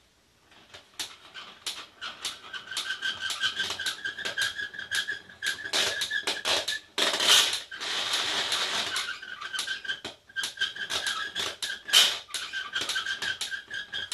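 Hand crank on the launch base of a Gakken Leonardo da Vinci helicopter kit being turned to wind the rubber bands inside the post: a fast run of plastic clicks with a steady squeak running through most of it.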